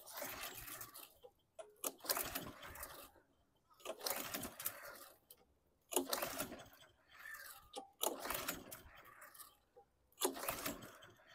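Recoil starter rope on a Toro push mower's Kohler engine pulled over by hand about six times, each pull a rasp of about a second, roughly two seconds apart. The engine turns over easily, like low or no compression.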